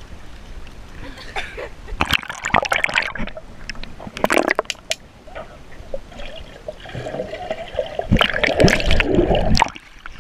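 Swimming-pool water splashing and sloshing around a waterproof camera as it dips under and comes back up, with muffled bubbling while it is underwater. The water noise comes in irregular bursts and is busiest near the end.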